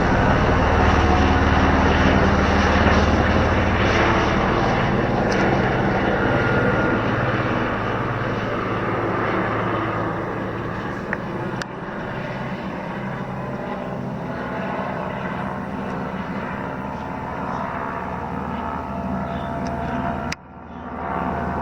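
Helicopter flying past, its rotor and engine loudest at the start and fading steadily as it moves away. The sound briefly cuts out near the end.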